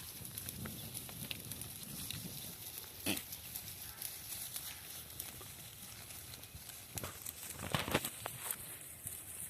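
Goats making short calls: one brief call about three seconds in and a louder, longer one near the end, over steady hiss and scattered light clicks.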